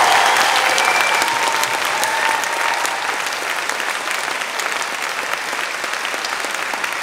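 Audience applauding, loudest at the start and slowly tapering off.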